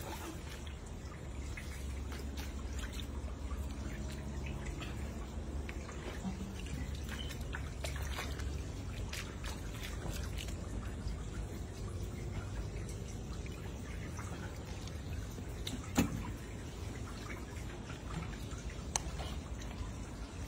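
Shallow water dripping and trickling, with small splashes as a person wades in rubber boots and dips a hand into the water. Scattered light clicks, and one sharper knock about 16 seconds in.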